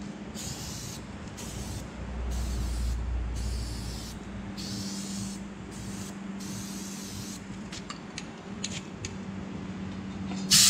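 Aerosol can of starting fluid sprayed around a tire bead in about seven short hissing bursts, to bead the tire by ignition. Near the end, compressed air from an air hose starts blasting loudly through the open valve stem.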